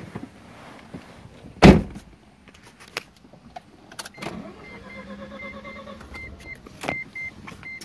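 A car door shuts with a single heavy thump about 1.7 s into the cabin of a 1989 Mazda RX-7 Turbo II. About four seconds in, with the key turned on, a steady electrical hum starts and a warning chime begins beeping about three times a second, the engine not yet started.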